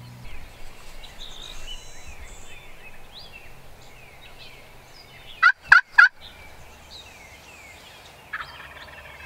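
A wild turkey jake gobbles once, a loud, quick burst of three pulses about five and a half seconds in. Songbirds sing short, repeated downslurred notes throughout.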